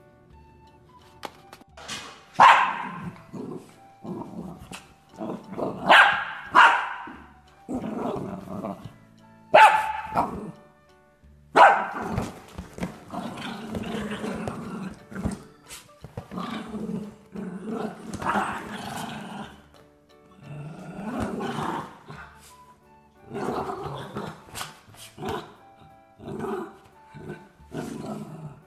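A dog barking sharply several times, the loudest barks coming about every two to four seconds, followed by a run of quieter barks and growls, with music in the background.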